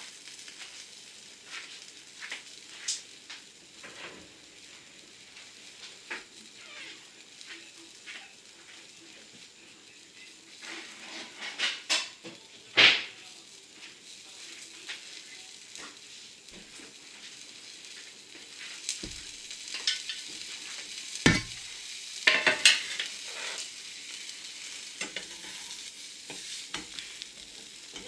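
A bread-and-cheese sandwich frying in a pan, with a steady sizzle and small crackles. A few sharp knocks and clatters come about halfway through and again about two-thirds of the way through.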